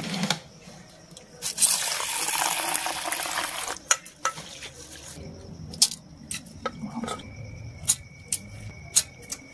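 Water pouring into a steel bowl of red lentils for about two seconds, then a hand swishing the lentils in the water to wash them. Scattered sharp clicks and knocks of steel utensils follow.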